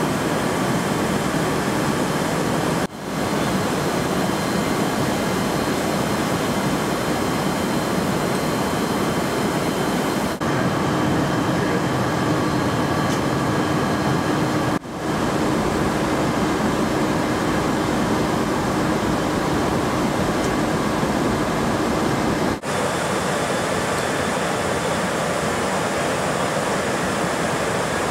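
Steady engine and airflow noise inside a C-17 cargo hold in flight, broken by a short dip about four times where the sound shifts a little.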